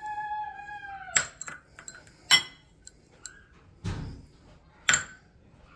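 Three sharp ringing clinks of a small bowl knocking against the rim of a stainless steel saucepan as ingredients are tipped in, the second the loudest, with a duller thump between the last two. A high, drawn-out tone sounds for about the first second.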